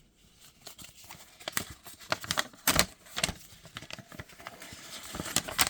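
Handling of the product box and its paper instruction manual: irregular light taps, clicks and paper rustles.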